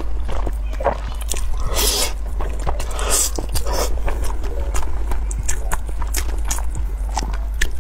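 A person slurping up sticky, cheese-covered spicy instant noodles, with two longer sucking slurps about two and three seconds in, then wet chewing with small smacks and clicks.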